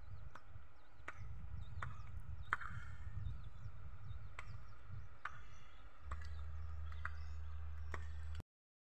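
Outdoor ambience with a low rumble and a series of sharp clicks or knocks, roughly one a second, over faint high chirps; a steady low hum comes in about six seconds in, and the sound cuts out just before the end.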